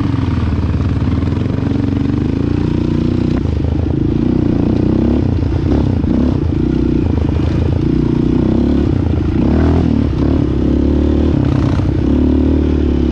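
Single-cylinder sport quad engine running steadily, its pitch rising and falling slightly with small throttle changes.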